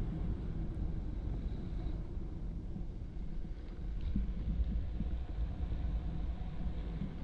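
Drift trike rolling downhill on wet asphalt at speed, its wheels making a steady low rumble mixed with wind buffeting the microphone.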